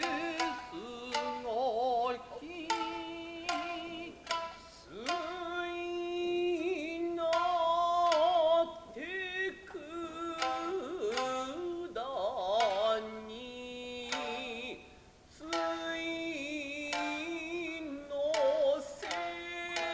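Nagauta music: sharp plucked shamisen notes under long, wavering sung phrases.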